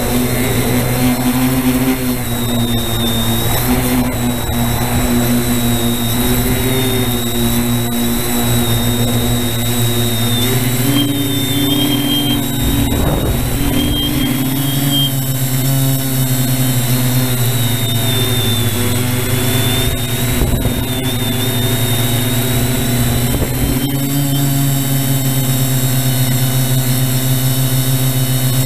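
Brushless electric motors and propellers of a TBS Discovery-type quadcopter, heard from its onboard camera: a steady, loud multi-tone hum whose pitch rises and falls a little with throttle, with a faint high whine above it.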